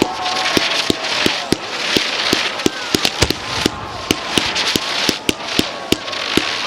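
Fireworks display: rapid, irregular bangs and pops of bursting shells, several a second, over a steady hiss.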